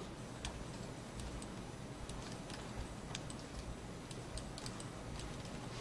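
Faint, irregular clicks of a computer mouse and keyboard, several a second.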